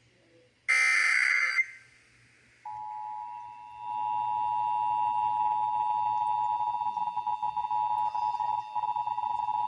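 Emergency Alert System test tones. A short burst of SAME digital data tones comes about a second in. Then the EAS two-tone attention signal (853 and 960 Hz together) starts about two and a half seconds in as a steady tone, grows louder about a second later, and flickers rapidly in level in its second half.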